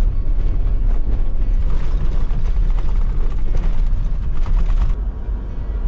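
Toyota Land Cruiser driving on a rough dirt track: a heavy low rumble with continual creaking and rattling, easing slightly about five seconds in.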